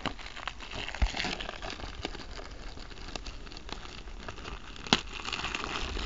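Plastic wrapping on a DVD case crinkling as it is peeled off by hand, with many small clicks and two sharper clicks, about a second in and near five seconds.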